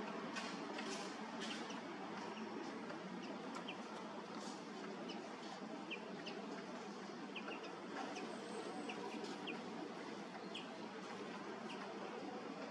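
Wind rushing through oak foliage, a steady rustling hiss, with short high chirps repeating every second or so.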